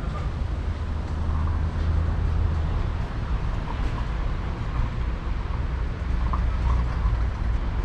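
A steady low rumble of background noise, with a few faint short sounds higher up.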